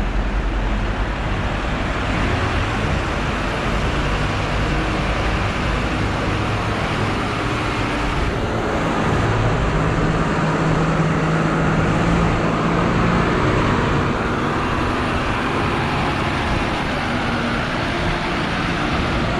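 Steady city road traffic: cars and buses passing on a busy street, with a low engine hum from a nearby vehicle swelling a little around the middle.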